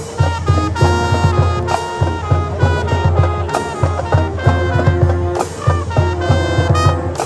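High school marching band playing, with brass carrying held chords and a melody over a steady low beat from drums and low brass.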